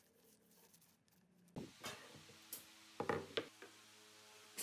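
A few sharp knocks and clicks of a drill and screws being handled against a wooden board, the loudest about three seconds in, after a nearly silent first second and a half.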